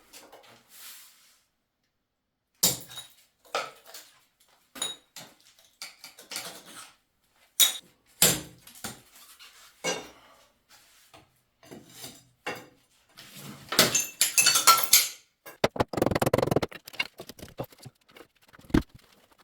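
Irregular metal clinks and knocks of hard objects being handled and set down, becoming a denser run of scraping and rattling a little past halfway.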